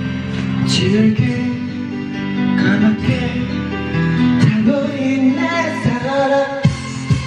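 A karaoke backing track with guitar, and a young man singing along into a karaoke microphone. Drum hits come in near the end.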